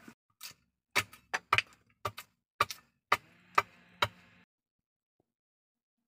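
A billhook blade chopping at a wooden pole: a dozen or so sharp, uneven strikes, about two or three a second, that stop abruptly about four and a half seconds in.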